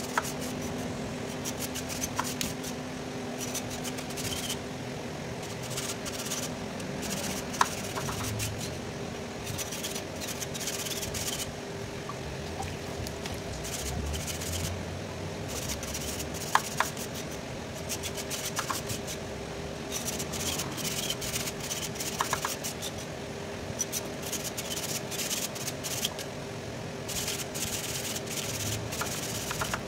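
Irregular scraping and rubbing of a thin rod or hand tool worked against a truck radiator core during cleaning, with a few sharp clicks. A steady hum runs underneath.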